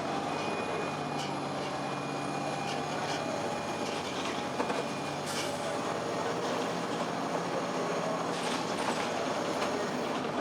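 Cabin noise inside a 2002 Blue Bird CS transit bus, with its Cummins ISC diesel engine running under steady road noise. A thin high whine carries through the first half, and a couple of short rattles come about halfway and later on.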